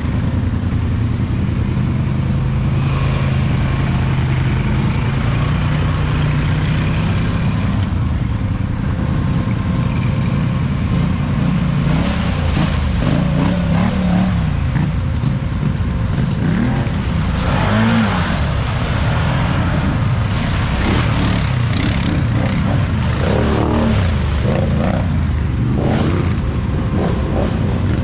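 ATV engines running steadily on a muddy trail, with other quads revving past; engine pitch rises and falls several times in the middle.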